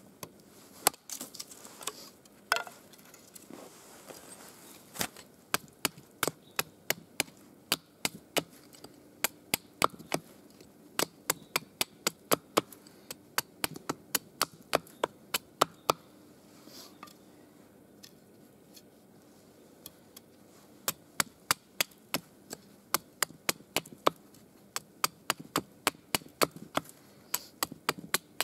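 A hatchet chopping into a wooden stick held upright on a chopping stump: a fast series of sharp wooden chops, about two or three a second, that pauses for a few seconds midway and then starts again.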